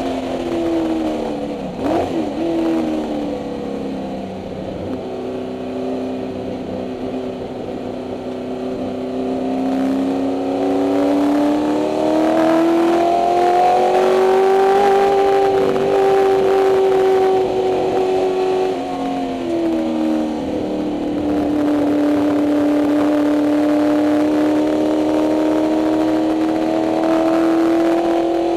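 1964 Ford Mustang race car's 289 Windsor V8 running hard on track, heard inside the cabin. Revs fall sharply at the start, with a quick blip about two seconds in. They stay low for several seconds, then climb to a peak around the middle, drop back, and hold fairly steady near the end.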